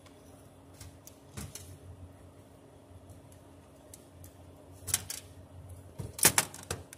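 Small metal clicks and taps of a screwdriver working a screw out of a dishwasher's electric pump-motor bracket, with a few sharper knocks about five seconds in and again near the end.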